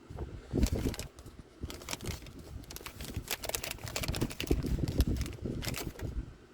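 Close handling noise as new O-rings are lubed with oil and fitted onto the oil filter cap: a busy run of light clicks, taps and crinkling rustles.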